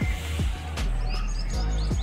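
Background music with a deep bass beat, with a few short, high bird chirps over it in the second half.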